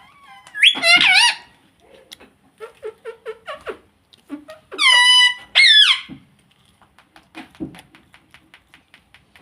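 Indian ringneck parrot giving loud, high-pitched calls, a two-part burst about a second in and another about five seconds in, with quieter mumbling chatter and soft clicking in between.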